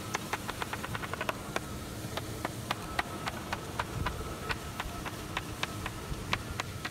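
Stiff putty knife being worked under a fiberglass door's molding, cutting the glazing tape that holds the glass: a run of light, irregular clicks, quick at first, then a few a second.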